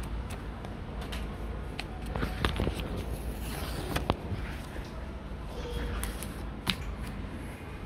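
Sticky-note pad handled by hand: its paper pages flipped and a sheet peeled off. The sound is rustling paper broken by scattered sharp ticks and snaps.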